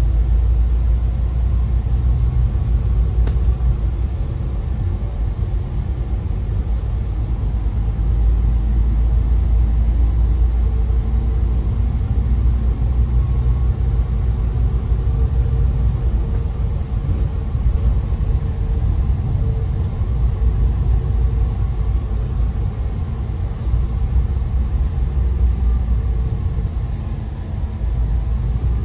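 Steady low rumble of engine and road noise inside a moving double-decker public bus, with a faint drifting whine above it and a single light click about three seconds in.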